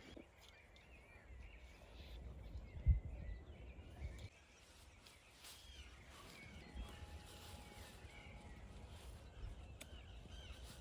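Small birds chirping in the background over a low rumble, with one dull thump about three seconds in.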